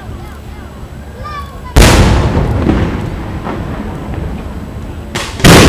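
Aerial fireworks shells bursting: two loud booms, one about two seconds in and another near the end, each trailing off over about a second.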